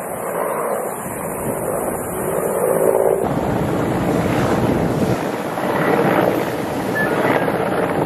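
Wind rushing and buffeting on an outdoor microphone, a steady noisy haze with no clear engine tone, changing in character about three seconds in.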